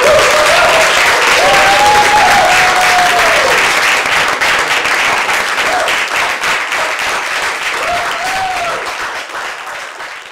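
Audience applauding, with a few voices calling out over the clapping; the applause dies away near the end.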